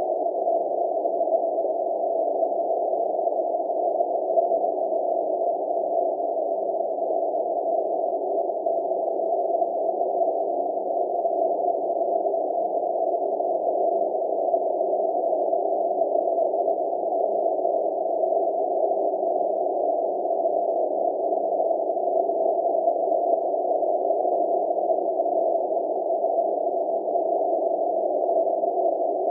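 A steady, unchanging hum that goes on without a break.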